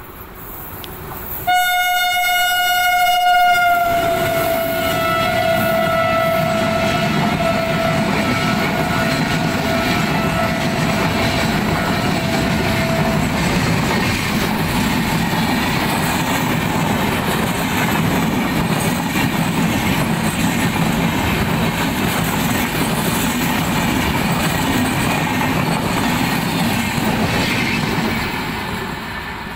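An Indian Railways electric locomotive sounds a long horn as it approaches and passes. The horn is loudest for its first two seconds, drops slightly in pitch as the locomotive goes by, and trails off fainter. The express's coaches then run past with a steady noise of wheels on rails, which fades near the end as the last car passes.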